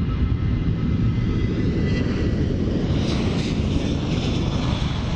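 Jet airliner's engines running loud and steady as it rolls along the runway, with a faint high whine that fades about two seconds in.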